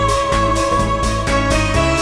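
Background music with a steady beat, bass notes and a held high melody note.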